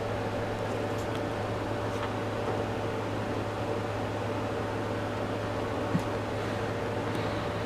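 A steady machine hum, holding constant tones, with a single light click about six seconds in.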